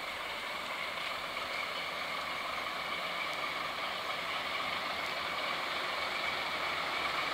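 Diesel locomotive idling steadily, a constant engine hum with a faint steady whine above it.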